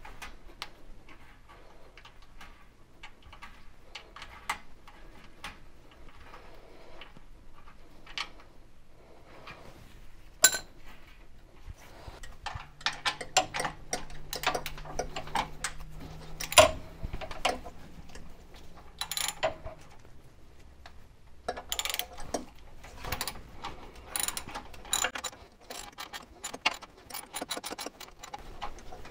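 Scattered small metallic clicks, taps and clinks of hand work fitting a stainless steel brake line and its mounting bracket, with a sharper knock about ten seconds in and a busier run of clicks from about two-thirds of the way through.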